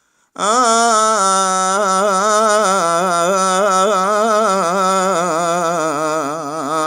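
Unaccompanied male voice singing one long ornamented note without words, a wavering melisma in the Arab rural (reefi) mawwal style in maqam Bayat, lasting about six and a half seconds after a brief silence.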